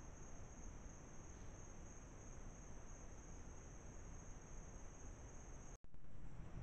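Night insect chorus: a faint, steady, high-pitched trilling of crickets over the trail camera's low background hiss. It cuts off suddenly near the end, giving way to a louder low rumbling hiss.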